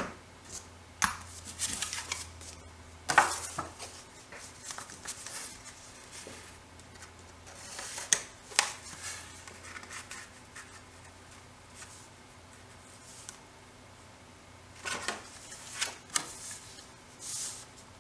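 Paper and crafting tools handled on a work surface: scattered rustles, taps and clicks, loudest about three seconds in, around eight seconds in and again near the end, over a faint low hum.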